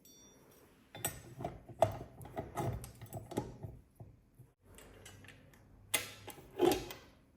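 Kitchen equipment knocking and clinking: a run of sharp knocks about three a second, then a faint hum and two louder knocks near the end.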